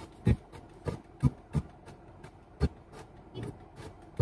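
Car stereo radio being swept through the stations by hand: short, choppy snippets of sound, about seven in four seconds at uneven spacing, break in over a faint background. The uploader takes the last snippet for a spirit voice saying "he is".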